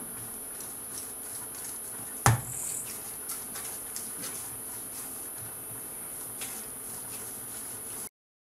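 Hands kneading and pressing oiled spinach dough on a wooden board: faint scattered taps and one sharp knock about two seconds in, over a steady high hiss. The sound cuts off abruptly near the end.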